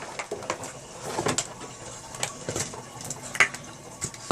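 Plastic pieces and packaging from a slime-making kit being handled and unpacked: a soft rustle with scattered light clicks and knocks, a sharper one about three seconds in.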